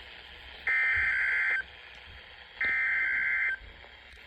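Emergency Alert System SAME header data bursts from a NOAA Weather Radio: two bursts of digital data tones, each about a second long and about a second apart, announcing a new alert.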